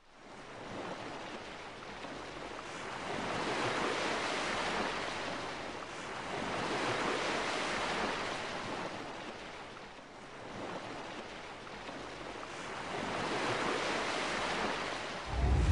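Ocean surf: a steady wash of waves swelling and fading every three to four seconds. A loud, deep sound cuts in at the very end.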